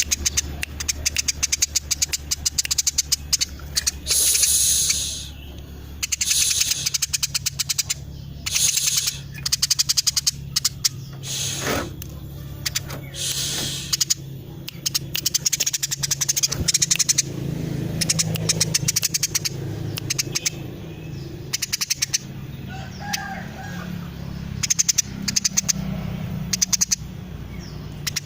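Female Eurasian tree sparrow calling in fast, tightly packed runs of chirps and chatter, bursts following one another with short breaks.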